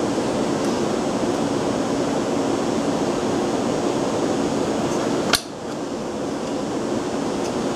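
A single sharp clank about five seconds in, as the disassembled generator engine's parts are handled, over a steady background hum.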